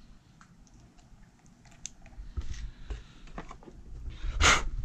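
Small clicks and rattles of a cordless drill being handled as a Torx bit is fitted into it, with one short, louder burst of noise near the end.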